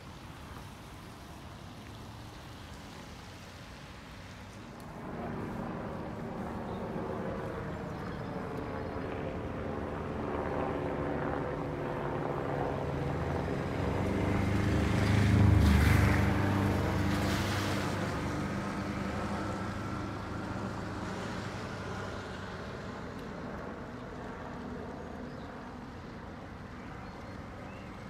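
Helicopter passing overhead: its engine and rotor sound builds from about five seconds in, is loudest a little past halfway, then slowly fades away.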